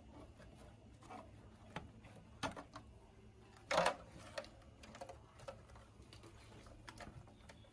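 Scattered light clicks and taps of hand work on small parts and tools. One louder knock or clatter comes a little before halfway.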